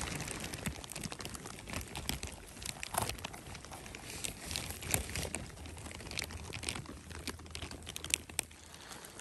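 Irregular crinkling and crackling: a plastic rain cape rustling and dry reindeer lichen and pine-needle litter crunching as a hand works a porcini mushroom out of the ground.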